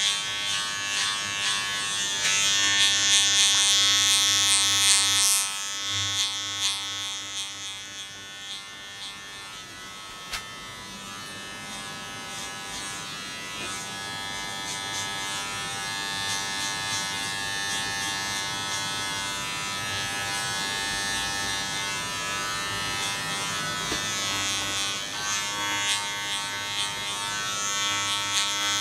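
Electric hair clippers buzzing steadily, louder for a few seconds early on and again near the end, quieter in between.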